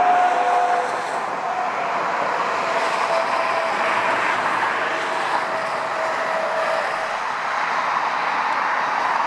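Boeing 747 cargo jet's four engines heard from a distance as it taxis: a steady rushing jet noise with a faint whining tone that fades about seven seconds in.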